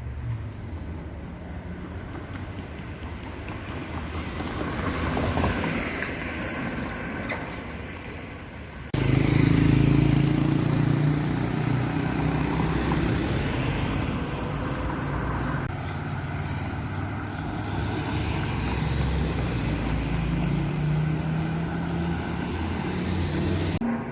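City traffic noise, with road vehicles running and passing. About nine seconds in the sound cuts abruptly to a louder scene dominated by a steady low engine hum.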